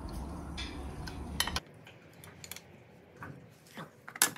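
Hand tools on a Harley-Davidson Sportster's primary case drain bolt as it is worked loose: a few scattered light metallic clinks and taps, with a low rumble that stops about a second and a half in.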